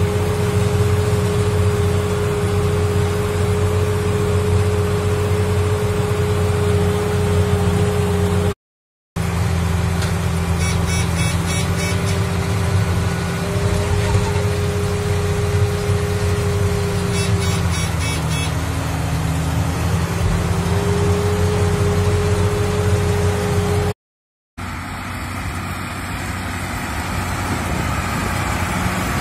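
New Holland 8160 tractor's six-cylinder diesel engine running steadily under load with a Krone Comprima round baler working behind it, heard from the cab, with a steady whine over the drone. Near the end the sound changes to the tractor and baler heard from outside as they pass.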